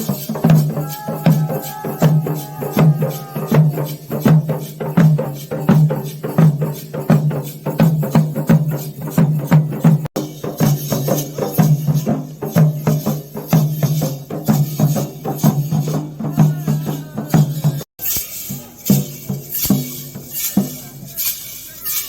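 Traditional Karnataka folk-dance music: fast, dense drum strikes over a steady low droning tone. After a brief break about two-thirds of the way in, the drumming gives way to brighter jingling, clashing percussion.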